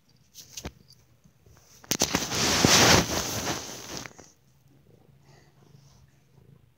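Loud rustling and scuffing right against the microphone for about two seconds, preceded by a sharp click; the sound of something rubbing on or covering the recording phone.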